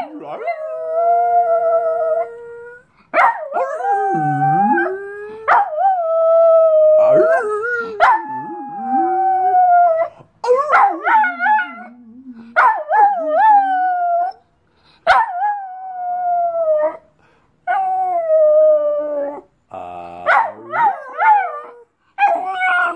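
Small dog howling: about ten long drawn-out howls, each a second or two, some held steady and some wavering up and down in pitch, with short breaks between.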